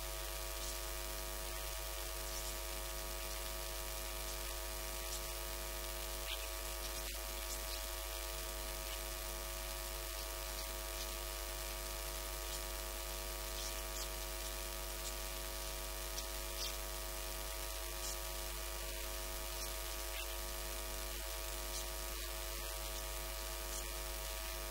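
Steady electrical mains hum and buzz over hiss in the recording, a stack of even tones that never changes, with a few faint ticks.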